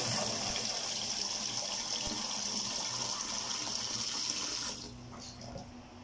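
Kitchen faucet running into a plastic water dipper in a stainless steel sink, a steady hiss of pouring water that stops about five seconds in.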